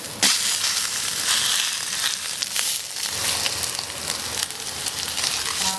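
Pork hock skin sizzling and crackling as it is seared on a hot surface to scorch the skin, with a loud jump in the sizzle just after the start.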